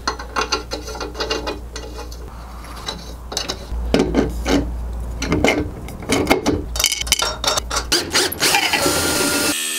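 Steel threaded rods, nuts and washers clicking and rattling against aluminium extrusion and a 3D-printed plastic bracket as they are screwed in by hand. Near the end a cordless drill with a socket bit whirs briefly, driving the nuts tight.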